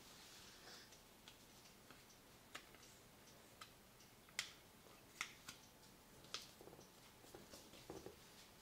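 Faint handling of white paper being folded and creased by hand: soft rustles with scattered small, sharp ticks, the loudest about halfway through.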